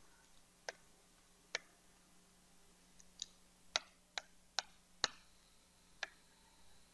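Faint, irregular sharp clicks and taps, about nine of them, from a pen or stylus striking the surface of an interactive whiteboard while writing.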